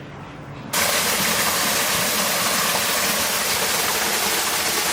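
A loud, steady rushing noise with no pitch, starting abruptly about a second in.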